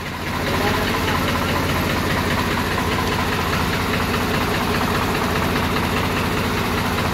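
Swaraj tractor's diesel engine running steadily with an even firing beat. It gets a little louder about half a second in, then holds steady.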